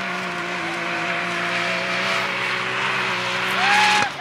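Can-Am Maverick X3 side-by-side's turbocharged three-cylinder engine running at high revs with a steady pitch, with a louder rising-and-falling whine near the end.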